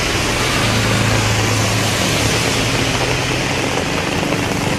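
Heavy rain pouring as a dense, steady hiss, with the low hum of a motor vehicle's engine passing through it, strongest in the first half; a second engine note comes in near the end.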